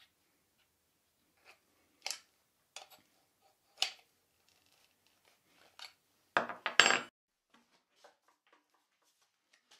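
Scattered metallic clicks and clinks from a compact trim router being handled and adjusted with a small wrench and a locking pin, with a short cluster of louder knocks about six and a half seconds in.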